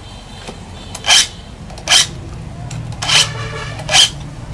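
Hand file rasping across the teeth of a saw blade in four steady strokes, about one a second, sharpening the saw.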